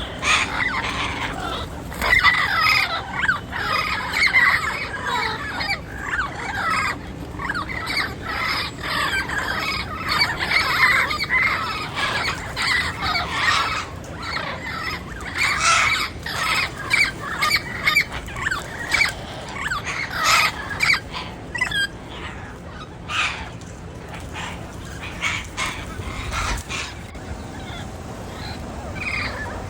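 Turquoise-fronted amazon parrots (papagaio-verdadeiro) squawking and chattering in rapid, overlapping calls, thinning out to scattered calls in the last third.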